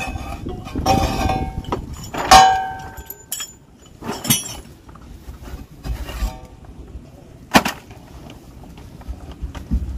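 Metal clanks and clinks from a propeller puller being handled against a boat propeller and shaft. The loudest is a ringing clank a couple of seconds in, followed by a few scattered knocks and a sharp click near the end.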